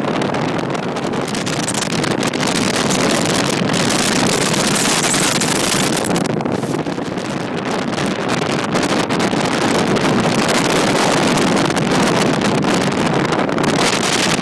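Wind rushing over the microphone aboard a Chaparral speedboat running at speed, with the boat's engine and rushing water mixed in as one steady loud noise.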